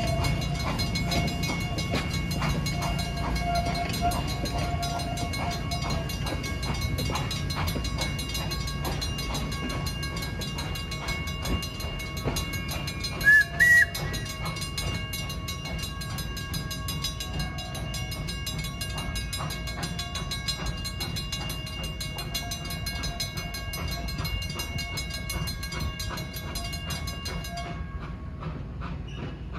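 Railroad grade-crossing FS mechanical bells ringing fast and steadily while railcars roll past with a low rumble. About halfway through come two short, loud, high-pitched toots. The bells stop abruptly near the end as the crossing signal deactivates.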